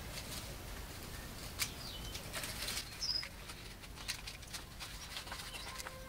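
Paper cupcake liners crinkling and rustling in irregular small crackles as they are handled and pushed onto a metal wire. A small bird gives one short high chirp about three seconds in.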